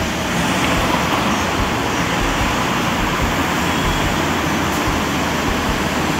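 Steady road traffic noise: cars, taxis and vans driving past on a wide, busy city roundabout.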